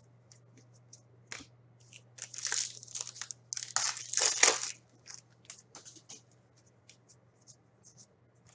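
Hockey card pack wrapper crinkling and tearing in two stretches, about two and about four seconds in, with light ticks of cards being handled around them.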